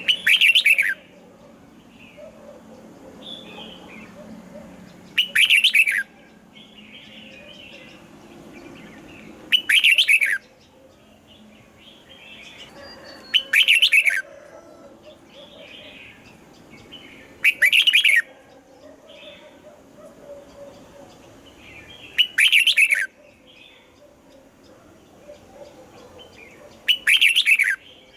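Red-whiskered bulbul song: a short, loud phrase of quick descending notes repeated seven times, about every four seconds, with softer chirps in between.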